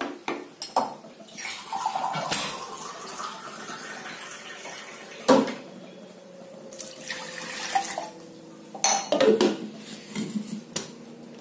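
Water running into a steel mixer-grinder jar, with knocks and clatter of kitchen utensils; one sharp knock about five seconds in.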